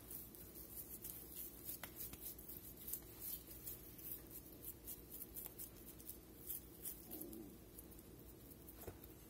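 Faint, soft patting and squishing of raw ground beef being pressed and shaped into a patty by hand, as many small irregular ticks over a steady low hum.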